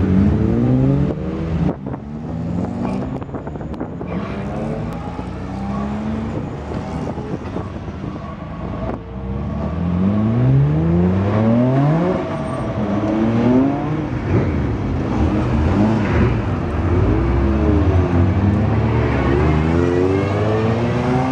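Race-prepared cars, among them BMW 3 Series coupés, pulling away from the pit lane one after another, each engine note rising as it accelerates through the gears. Near the end several engines sound at once, their pitches crossing as one climbs and another drops.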